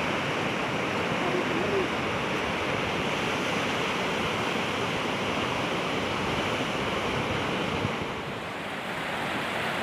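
Steady rush of a flash-flooded river, easing a little about eight seconds in.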